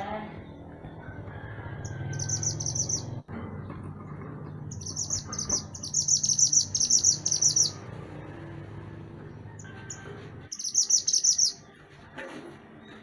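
Mantenan gunung songbird singing in three bursts of fast, high trilled chattering notes, the middle one the longest, over a low steady background hum.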